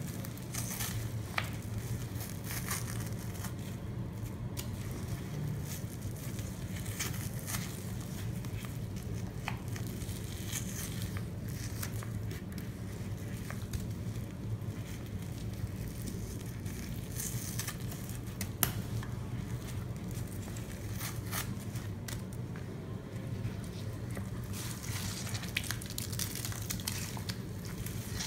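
Wet sponges soaked with a thick Comet cleanser and Pine-Sol paste being squeezed and crushed in rubber-gloved hands, with constant crackly squishing as the paste and foam pop. A steady low hum sits underneath.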